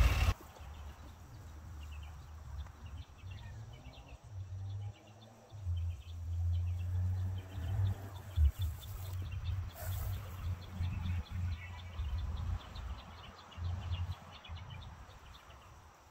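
Birds and insects chirping over a low, uneven rumble, with a couple of sharp clicks about eight and ten seconds in.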